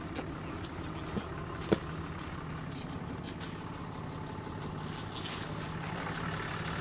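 A vehicle engine idling steadily, with two short sharp knocks, the louder one a little under two seconds in.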